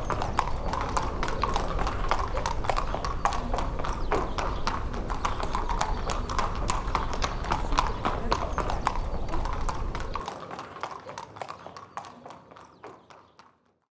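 Horses' hooves clip-clopping on hard ground, many uneven hoofbeats from horses being led at a walk, fading out over the last few seconds.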